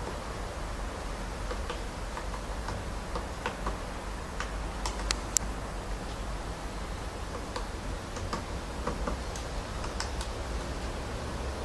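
Woodpecker pecking at wood: single sharp taps at an irregular, unhurried pace, a couple of them louder a little past the middle, over a steady low rumble.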